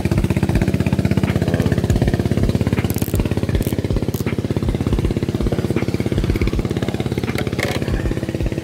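A small engine running steadily, with a fast even chugging pulse, and a few clicks over it.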